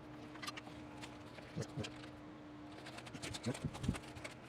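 A few soft knocks and handling sounds as mini split refrigerant lines are tucked into place, over a faint steady hum.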